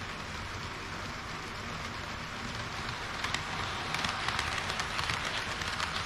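HO-scale model trains running on the track: a steady rolling hiss, joined about halfway through by rapid clicking of wheels over rail joints that grows louder as a KiHa 40-series railcar model comes close.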